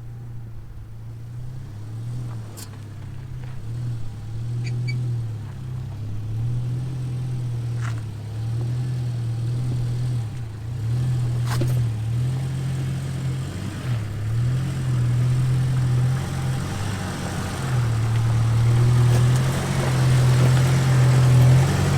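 Jeep engine running at low speed while crawling over a rough, rocky trail, its low drone wavering up and down in pitch and slowly getting louder, with a few sharp knocks.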